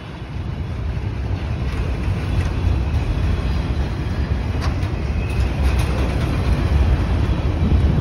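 Freight train of multilevel autorack cars rolling past close by, a steady low rumble of steel wheels on the rails. A single sharp click sounds about four and a half seconds in.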